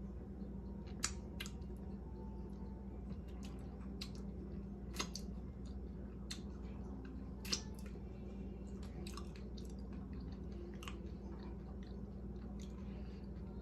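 Close-miked mukbang eating sounds: chewing with scattered wet smacks and mouth clicks at irregular intervals, over a steady low hum.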